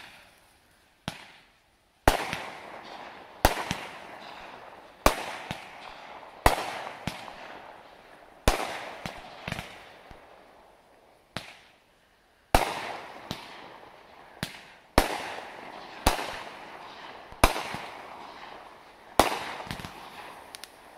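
Black Cat 'Road Rage' 200-gram, 25-shot fusillade cake firing. Its shots go off in a steady string of sharp reports, one every second or two, each fading out over a second or so.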